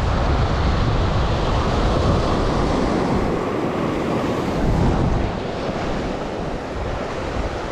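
Sea waves breaking and washing over rocks, a steady rush of surf, with wind rumbling on the microphone. The surf eases off a little about five seconds in.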